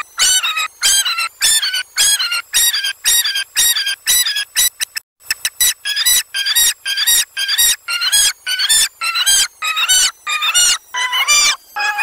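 A high-pitched, squeaky call repeated about twice a second, each one falling in pitch at its end, with a brief break about five seconds in.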